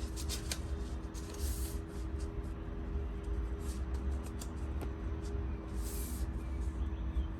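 Handling of transfer paper and heat transfer tape: scattered light clicks and rustles, with two longer hissy rustles about a second and a half in and again near six seconds, over a steady low hum.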